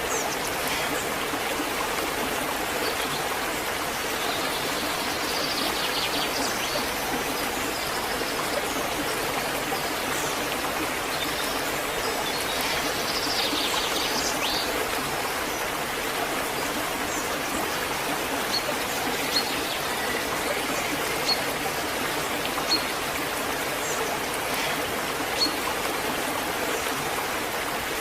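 Waterfall water rushing in a steady, unbroken stream. A few short, high peeps sound over it in the second half.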